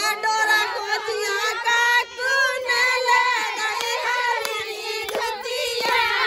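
A group of women singing a folk wedding song together in high voices, with hand claps scattered through it.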